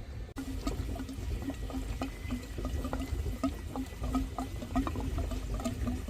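Water running and gurgling through a sewer drain, with many irregular splashes and bubbling blips over a steady low rumble.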